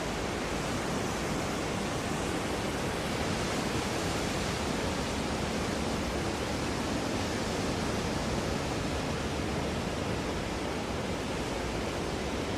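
Steady, even rushing noise with no distinct tones or events, as picked up by the onboard camera of a small FPV quadcopter in flight.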